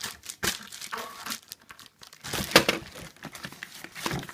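Plastic packaging crinkling and rustling as parts are unwrapped, in irregular crackles with the loudest burst about two and a half seconds in.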